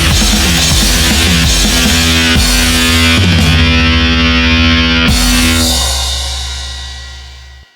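Closing bars of a heavy rock instrumental with electric guitar and drum kit, played loud, then a final chord held and fading out over the last two seconds before cutting off.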